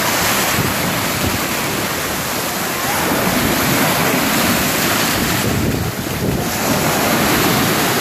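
Small ocean waves breaking and washing up over shallow sand, with wind rushing on the microphone.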